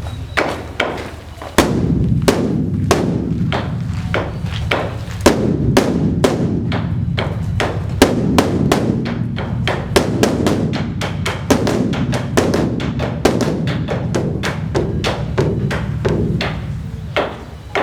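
Beopgo, the large Buddhist temple dharma drum, beaten with two sticks in a fast, dense run of strokes over a deep, continuous boom.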